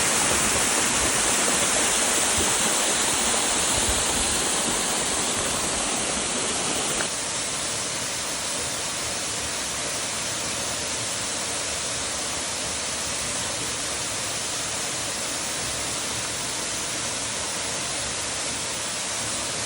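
Small waterfall rushing steadily. A short click about seven seconds in, after which the rush is slightly quieter and thinner in the low end.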